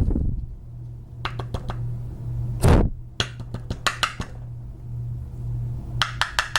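Sharp knocks and small metallic clicks of a Kwikset lock cylinder being banged against a hard surface to jar its pins out. The knocks come in a few quick groups, with one heavier knock just under three seconds in. A steady low hum runs underneath.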